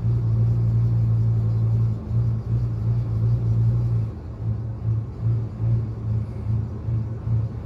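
1999 Ford F-350's 6.8-litre V10 running at idle, steady at first, then from about four seconds in pulsing up and down roughly twice a second: the misfire and idle surge the owner is seeking help with.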